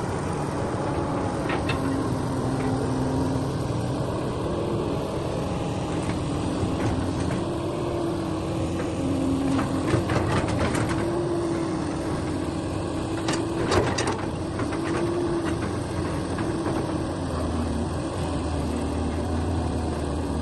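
A heavy earthmoving machine's diesel engine running steadily. A tone in it rises and falls over and over, and there are a few sharp metallic knocks about halfway through.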